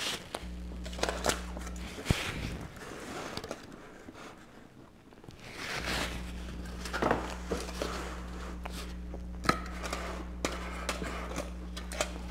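Paper napkin rustling as hands and mouth are wiped, with scattered small clicks and soft handling noises close to the microphone.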